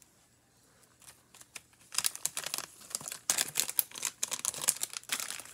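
Plastic soft-bait package crinkling and rustling as it is handled, starting about two seconds in and going on in bursts almost to the end.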